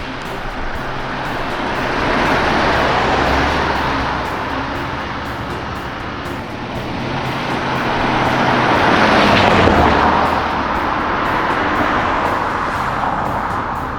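Cars going by: two swells of road noise, rising and falling, about three seconds in and again about nine seconds in, over background music.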